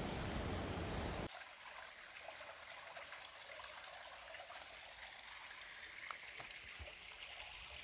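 A low rumble for about the first second, which stops abruptly. Then a small, shallow rocky stream trickles faintly.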